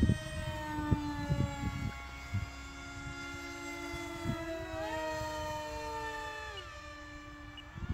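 High whine of electric radio-controlled model jets flying overhead, made of several steady tones. Some tones rise in pitch about halfway through and others drop near the end as the throttle changes. Low rumbling thumps sound on the microphone in the first two seconds.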